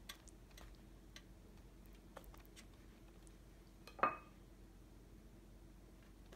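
Faint taps and scrapes of a metal spoon spreading sauce on a tortilla, then one sharp clink about four seconds in as the spoon knocks against the dish while more sauce is scooped.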